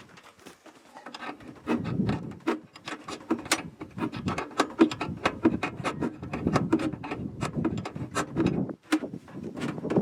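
Irregular knocks, clicks and scraping of parts and tools being handled, getting louder about two seconds in.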